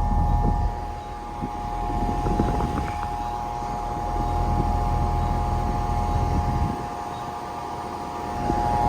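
2010 Bryant Legacy central air conditioner's outdoor unit running, which sounds very quiet. The Copeland scroll compressor hums with a few steady tones, over the uneven low rush of air from the condenser fan, driven by a GE Commercial motor.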